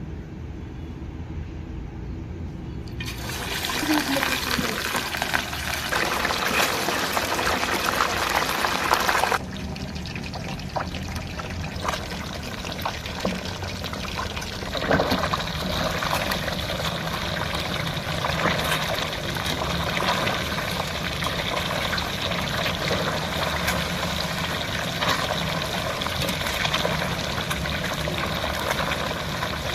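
Water pouring and splashing, loudest and steadiest from about three seconds in until it breaks off suddenly at around nine seconds, then a lighter, continuing splashing and trickling.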